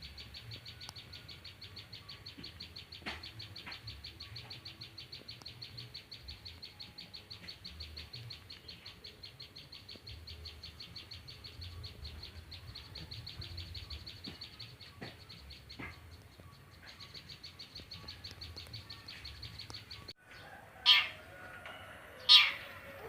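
Caged songbird singing a fast, evenly repeated series of high notes that runs on for most of the stretch, with a short break. After a sudden cut about twenty seconds in come three loud, separate bird calls.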